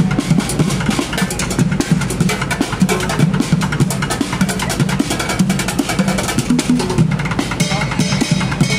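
Street drummer beating a fast, dense rhythm with drumsticks on a kit of upturned plastic buckets and metal pots and pans.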